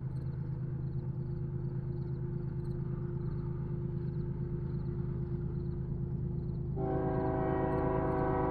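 Steady low rumble of an approaching diesel locomotive, a BNSF GE ES44C4, with a railroad crossing bell dinging faintly and evenly. About seven seconds in, the locomotive's air horn starts, a chord of several notes held steady.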